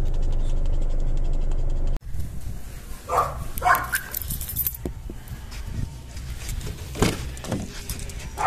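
A corgi barking: two short barks about three seconds in and another near the end, with a sharp knock around seven seconds. Before that, a steady low rumble runs for the first two seconds and cuts off suddenly.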